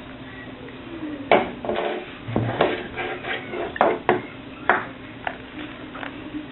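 Kitchenware clinking and knocking: about eight sharp, irregularly spaced clinks, each with a short ring.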